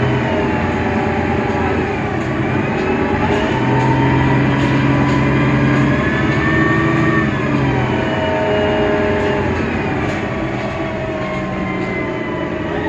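Mercedes-Benz Citaro O530 Ü city bus's OM 906 hLA six-cylinder diesel and Voith DIWA automatic gearbox running under way, with a whining drivetrain note. The pitch rises over the first few seconds as the bus accelerates, holds, then drops about eight seconds in.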